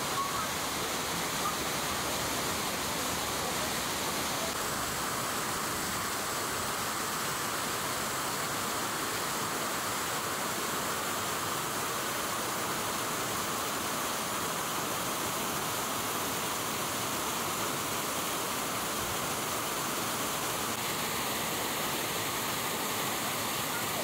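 Ondaki, the main fall of the Nunobiki Falls, thundering steadily, running high and forceful after the previous day's rain.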